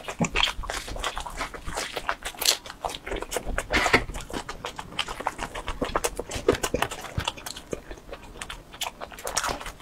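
A person chewing pizza close to a clip-on microphone: a dense run of irregular wet mouth clicks and smacks.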